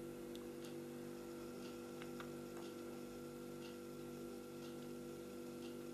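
Quiet room tone: a steady electrical hum of several constant tones, with faint small ticks about once a second.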